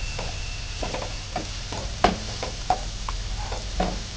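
Sliced onions and garlic sizzling in butter in a nonstick wok while a wooden spatula stirs them, knocking and scraping against the pan in irregular taps; the loudest knock comes about two seconds in.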